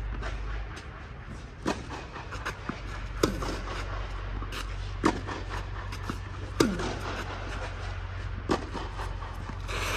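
Tennis balls struck by rackets in a rally: about five sharp pocks spaced a second and a half to two seconds apart, with fainter bounces and footsteps on the clay between them, over a steady low hum.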